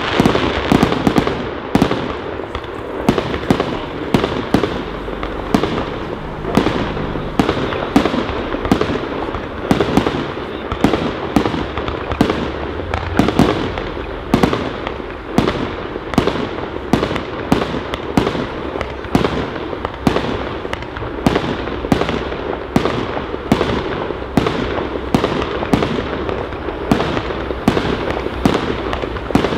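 Royal Fireworks 'Golden Power' fireworks cake (a multi-shot battery) firing shot after shot at an even pace of about two a second, each a sharp bang from a tube launching and its golden star burst. The shots follow so closely that they run together with no quiet between them.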